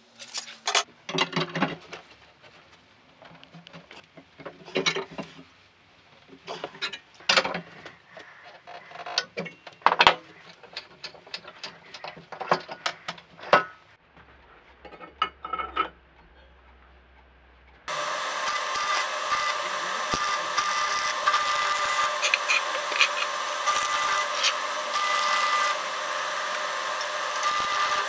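Sheet-steel parts clicking and knocking together as a steel grille piece is handled and fitted into a barbecue body. From about 18 seconds in, a steady stick-welding arc sizzles and crackles as a steel frame is welded.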